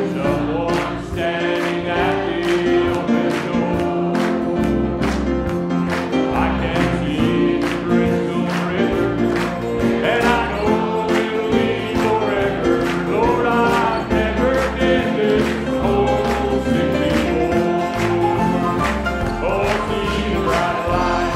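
Men singing a gospel song in harmony over an instrumental accompaniment with a steady beat.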